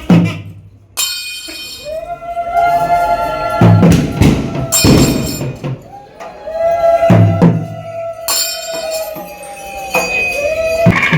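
Traditional Kerala festival percussion and wind music: loud drum strokes and cymbal crashes under a wind instrument playing long notes that slide up in pitch and then hold.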